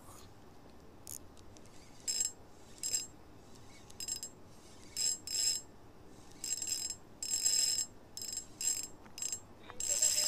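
Small spinning reel (Hinomiya Terracotta Mighty 1000) cranked in short, irregular bursts, each a brief whirring with a high whine, as a 10 g micro jig is retrieved in jerks.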